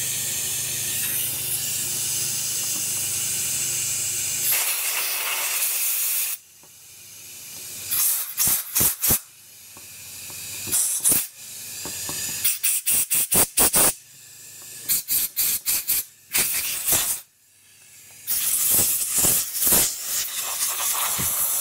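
Compressed-air blow gun hissing through the fuel and air passages of a Honda Shadow 1100 carburetor, drying out carburetor cleaner with the trigger only barely pulled. A steady hiss for about six seconds, then a run of short quick puffs, and a steady hiss again for the last few seconds.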